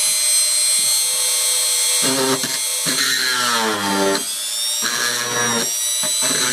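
Electric drill running with a steady high whine while its bit drills out the circuit breaker's rivets. From about two seconds in, a lower hum comes and goes several times as the bit bites, its pitch sagging under the load; the rivet metal is weak and cuts easily.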